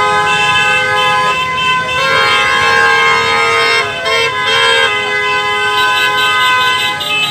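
Many vehicle horns honking together at once, long overlapping blasts at different pitches, with quick repeated short beeps near the end.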